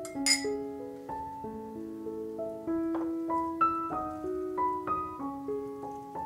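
Gentle solo piano background music. About a third of a second in, one short bright clink of a metal spoon against a glass cup.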